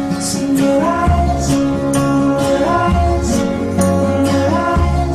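Background music: a song with a singing voice over bass and a steady beat.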